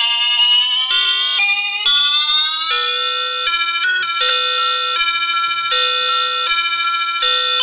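Circuit-bent electronic toy's sound chip playing electronic tones. Over the first few seconds the pitch slides upward as the added pitch-bend potentiometer is turned. The tones then settle into a repeating run of alternating notes, changing about every three-quarters of a second.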